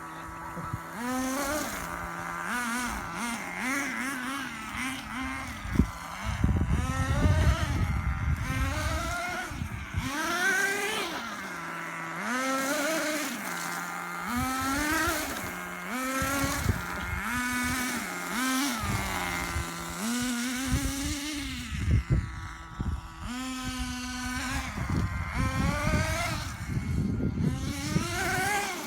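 Small nitro (glow-fuel) engine of an RC car revving up and down again and again, with a rising and falling whine on each burst of throttle, dropping back between bursts to a steady idle.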